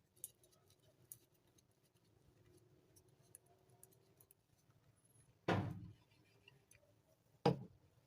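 A few faint clicks, then two louder knocks about two seconds apart, each dying away quickly.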